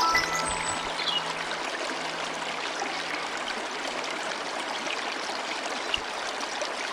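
Steady rushing and trickling of a running stream, with no music over it.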